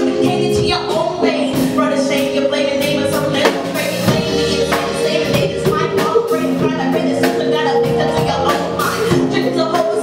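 Live band music: drum kit strikes over held, sustained chords.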